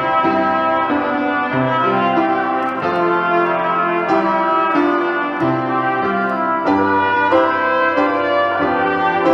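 Slow instrumental music: sustained brass chords, several notes held together, moving to a new chord about every second.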